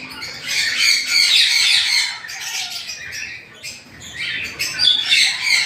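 Pet parrots squawking and chattering in shrill, high calls, in two bouts: one in the first couple of seconds and another near the end.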